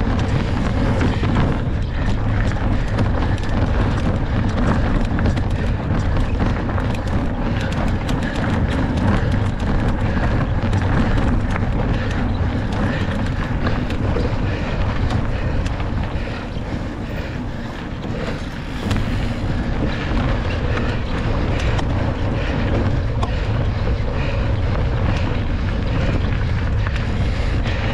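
Mountain bike ridden fast over rough ground: wind rushing over the microphone, with steady tyre noise and the rapid clicking and rattling of the bike. It eases off for a couple of seconds about two-thirds of the way through.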